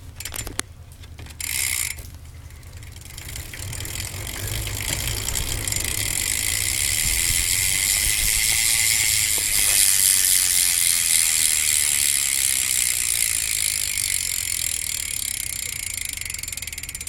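Stock Eastern rear hub of a BMX bike ratcheting as the back wheel spins, its pawls clicking so fast they run together into a buzz. The sound builds over the first several seconds and then slowly dies away as the wheel loses speed.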